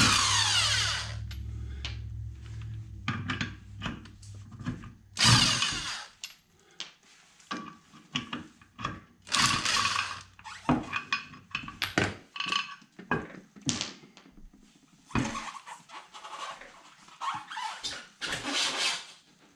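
Corded electric impact wrench spinning lug nuts off a car wheel in several bursts. Its motor has no electronic brake, so after each trigger pull it runs on with a whine that falls as it winds down. Near the end come the knocks of the wheel being pulled off the hub.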